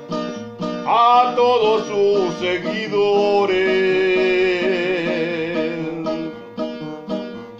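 A man singing to his own acoustic guitar: strummed chords about twice a second, with a sung line entering about a second in and ending in a long held note that fades out near six seconds. The strumming then carries on alone.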